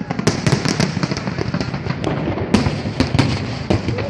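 Fireworks going off in a rapid, irregular barrage of sharp bangs and crackles, many overlapping, with the loudest reports about a quarter second in and about two and a half seconds in.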